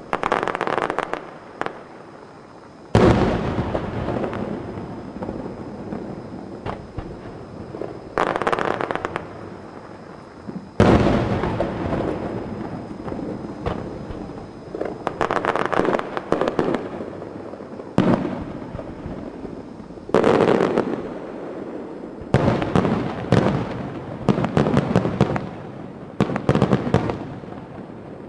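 Fireworks show: aerial shells bursting with heavy booms that rumble away over several seconds, about three and eleven seconds in, between clusters of rapid crackling bangs.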